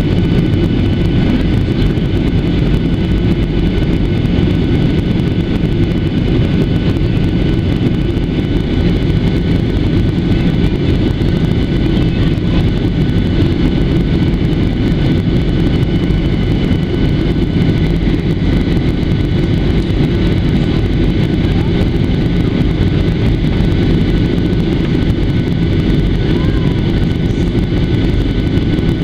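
Steady cabin noise of a Boeing 737-700 airliner in flight, heard from a window seat over the wing. It is a loud, even rumble of airflow and CFM56 jet engines, with several faint, steady whining tones from the engines above it.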